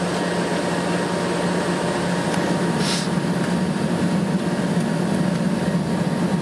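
Steady cabin drone inside a taxiing airliner: engine hum and air-conditioning noise, with a brief hiss about three seconds in.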